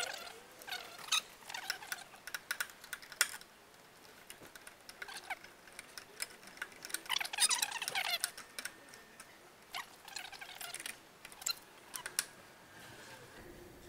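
Screwdriver and small metal fittings clicking and scraping as a plasma-cut metal lightning bolt is screwed onto a sculpture's horns: irregular light clicks with a few short scratchy rasps, the longest about seven seconds in.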